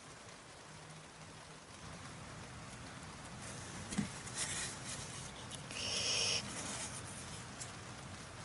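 Faint handling noises while small wooden model-ship hull parts are being shaped: a single sharp knock about four seconds in, then a short scraping rustle about two seconds later, over a steady outdoor background hiss.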